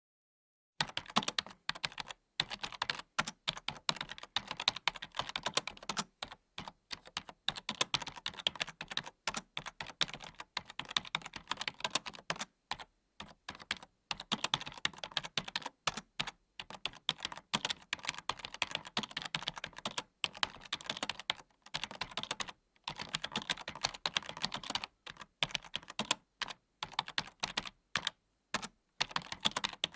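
Typing on a computer keyboard: quick runs of key clicks in bursts, broken by short pauses.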